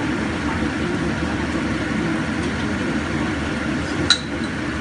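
A small glass jar set down on the countertop with one sharp clink about four seconds in, over a steady low rumble of kitchen noise.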